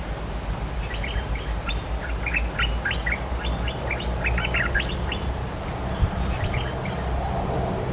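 A merbah lekir bulbul (Thai "dok taeng") singing a quick run of short, sweeping chattering notes for about four seconds, then a few more notes near the end, over a steady low rumble.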